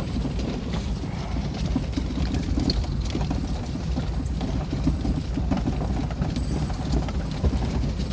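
Inside the cab of a 4x4 truck driving slowly over rough, bumpy ground: a steady low engine and road rumble with constant irregular knocks and rattles as the truck jolts.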